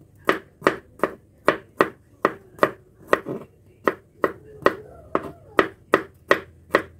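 Kitchen knife slicing garlic cloves on a plastic cutting board: a steady run of sharp knife strikes on the board, a little over two a second.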